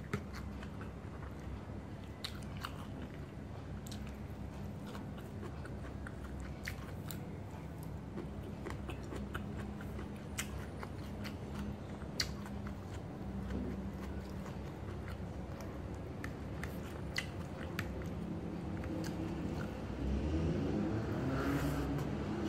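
Close-up chewing and eating mouth noises, with scattered short smacks and clicks over a steady low background hum. The background grows louder near the end.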